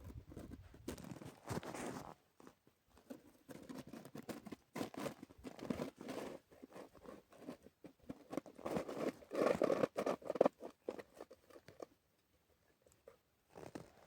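Irregular crunching and scraping, coming in short uneven stretches with brief gaps, loudest a little past the middle and dying away near the end.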